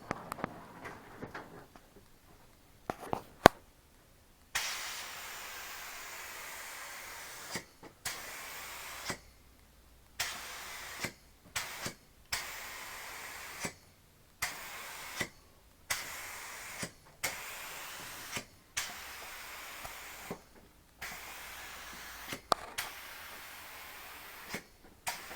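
Compressed-air spray gun spraying primer in a series of hissing bursts, each one to three seconds long, with short pauses between them. Most bursts open with a click as the trigger is pulled.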